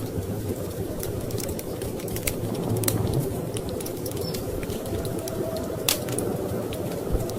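Wood fire crackling in a fireplace, with a few sharp pops, over a steady low rumble of storm wind.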